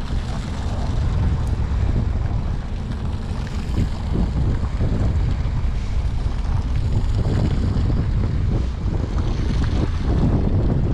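Steady low wind rumble buffeting the microphone over open sea, with the wash of choppy water.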